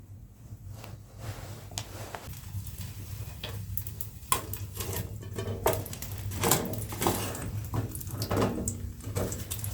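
Irregular clatter of sharp knocks and clinks, like things being handled, getting busier about halfway through, over a steady low hum.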